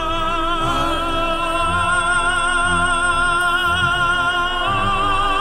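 Operatic singing with accompaniment: a voice holds one long note with a wide vibrato, moving to a slightly lower note near the end.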